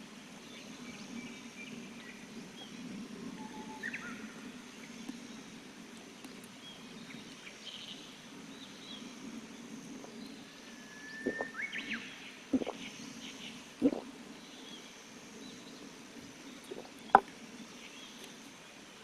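Charcoal campfire with a steady low rumble and a few sharp cracks between about 11 and 17 seconds in, the loudest near the end. Birds chirp faintly throughout.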